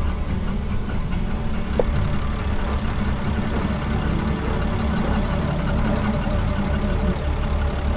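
A vehicle engine idling steadily with a low, even rumble, and a short squeak about two seconds in.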